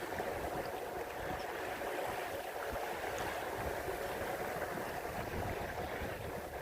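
Steady rush of lake water along a sailboat's hull while under sail, with wind rumbling in the background.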